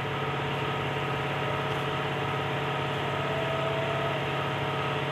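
2014 Dodge Durango's engine idling steadily.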